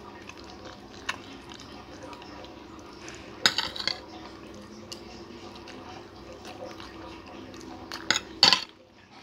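Spoon and fork clinking and scraping against a plate while eating, with a few sharp clatters about a second in, a louder cluster around the middle and another near the end.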